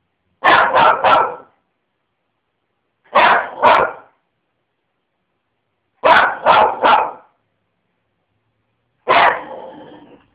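A dog barking in groups a few seconds apart: three barks, then two, then three, then a last bark that trails off near the end.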